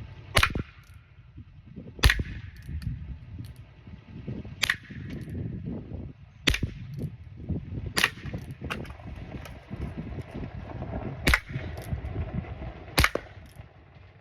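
Heritage Rough Rider .22 single-action revolver firing 22LR Colibri rounds: seven short, sharp cracks, spaced irregularly about one and a half to three seconds apart. The shots are quiet, light pops, because these weak low-velocity rounds are driven by the primer alone, without powder.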